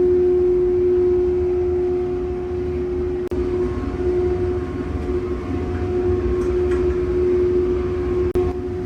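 Factory machine motor running with a steady hum over a low rumble, briefly dropping out twice.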